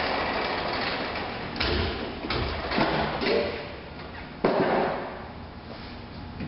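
A snowblower is wheeled onto the metal diamond-plate platform of a tailgate lift: a rolling rattle, then a run of metal clanks and thumps as its wheels and housing bump onto the plate, the sharpest about four and a half seconds in.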